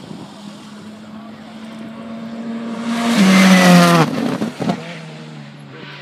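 Rally car approaching and passing at speed: its engine note builds for about three seconds, is loudest around three to four seconds in, and drops in pitch in two steps as it goes by. A single sharp knock comes just after, then the engine fades away.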